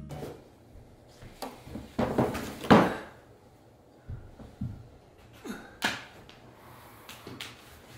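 Objects being handled and set down on a hardwood floor: a series of knocks and short rustles, loudest about two to three seconds in.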